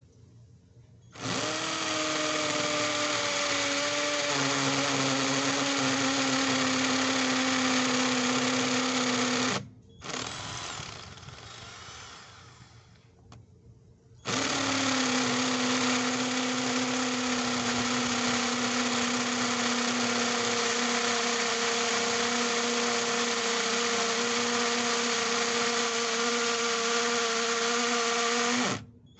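Yudoio rotary hammer drill's electric motor running at a steady speed for about eight seconds and stopping, then a short spin that winds down, then a second steady run of about fourteen seconds that cuts off suddenly.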